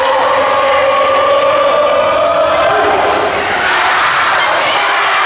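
Crowd noise echoing in a school gymnasium during a volleyball match: spectators talking and calling out, steady and loud, with the sounds of play on the hardwood court.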